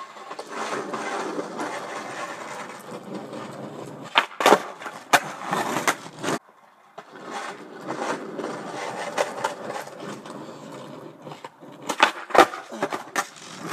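Skateboard doing flatground tricks on asphalt: the wheels roll with a steady grainy rumble, broken by sharp clacks of the tail popping and the board landing or slapping the road, one cluster about four to six seconds in and another near the end. The rolling stops briefly just after six seconds.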